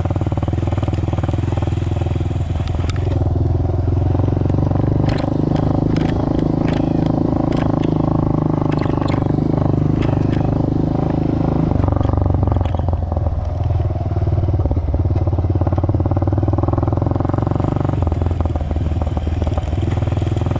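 Off-road vehicle engine running steadily under a rider, shifting in pitch with throttle and gear changes about twelve seconds in and again near the end, with scattered clicks and knocks over the middle stretch.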